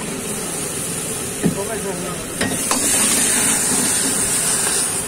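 Vegetables sizzling in a hot iron wok as a steel ladle stirs them, with one sharp knock of the ladle about a second and a half in. About two and a half seconds in the sizzle turns louder and hissier as the wok goes up in flames for the fire Manchurian.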